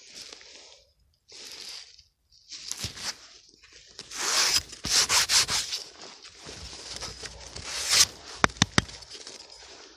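A flat hand tool scraping and gouging packed, root-filled earth in a series of rasping strokes, loudest around the middle, with a few sharp clicks near the end.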